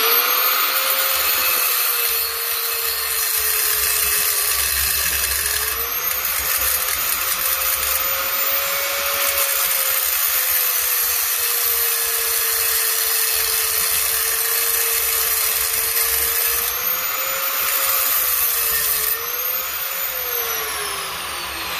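Angle grinder cutting around the weld of a rusty 8-inch yard-tractor rim, which spins on a shaft like a lathe under the disc. A loud, steady whine whose pitch sags and recovers now and then, then falls near the end as the grinder winds down.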